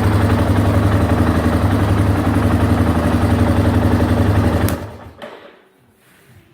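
1989 Yamaha Moto-4 350 ATV's single-cylinder four-stroke engine idling steadily after a top-end rebuild with new rings, valve seals and gaskets; it sounds good, with the rings still seating. The engine sound cuts off suddenly about three-quarters of the way through.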